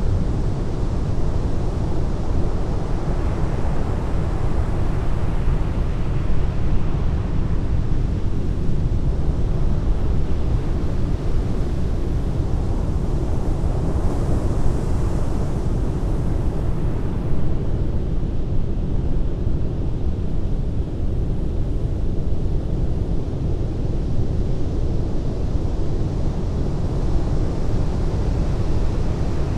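Heavy ocean surf breaking on a beach, a steady deep rumble of waves. A wave washes in with a brighter hiss about halfway through.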